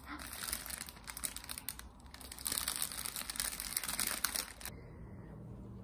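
Plastic bags and a paper shopping bag crinkling and rustling as bread is handled inside them, with a short lull near the middle. The crinkling cuts off abruptly near the end, leaving a quiet steady hum.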